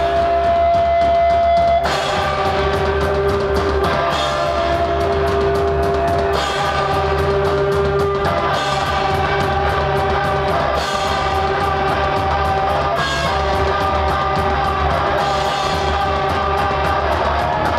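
Loud, noisy live punk rock from electric guitar, bass guitar and drum kit. A held guitar note rings for the first couple of seconds, then the drums and cymbals come crashing in with the full band about two seconds in.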